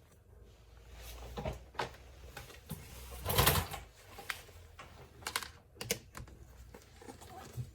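Plastic door cover being handled and fitted by hand: scattered light clicks and rattles, with a louder scraping rustle about three and a half seconds in.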